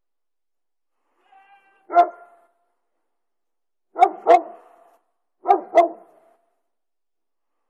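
A dog barking: a single bark, then two quick double barks a second and a half apart.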